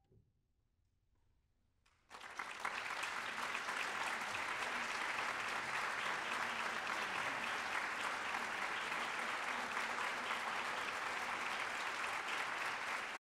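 Audience applauding, breaking out suddenly about two seconds in after a brief silence, holding steady, then cutting off abruptly near the end.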